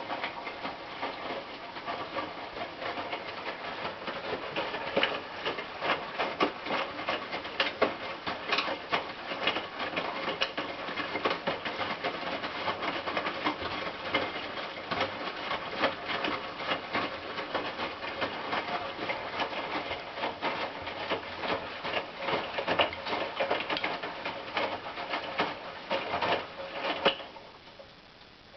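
Hotpoint NSWM 843C washing machine with inverter motor, its drum tumbling the wash during the rinse: a continuous, irregular run of swishing, rubbing and knocking. Near the end the drum stops and the sound drops away.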